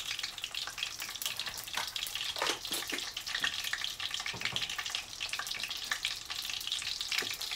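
Rice-paper spring rolls deep-frying in a pan of oil, sizzling and crackling steadily.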